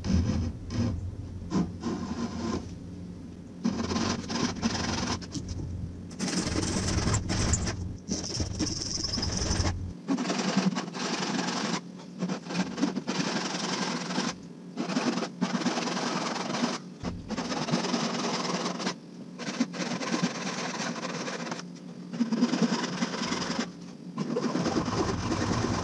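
Japanese crosscut pull saw cutting across an oak board, stroke after stroke with short pauses between them, sawing kerfs along marked lines to about 3/8 inch deep.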